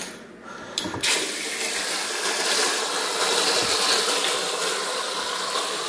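A kitchen tap opens with a short click about a second in, then water runs steadily from it into a stainless steel sink and onto a copper tubing coil.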